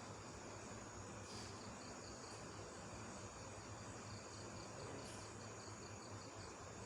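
Faint background noise with a steady low hum and a soft, evenly repeating high-pitched chirp.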